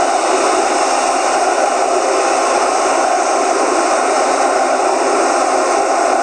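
Large football stadium crowd making a steady, unbroken din that holds at one level throughout.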